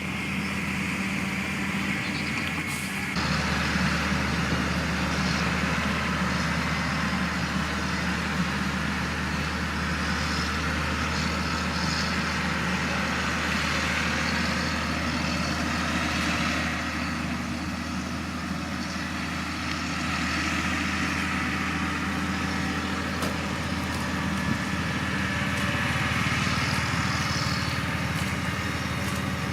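Heavy diesel engine of earthmoving machinery running steadily with a low drone that gets louder and fuller about three seconds in.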